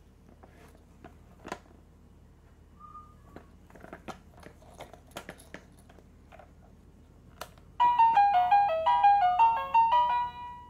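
Scattered light clicks and taps on a plastic Winfun duck baby toy laptop. About eight seconds in, a button press sets off a short electronic tune of quick beeping notes from the toy's speaker, lasting about two and a half seconds.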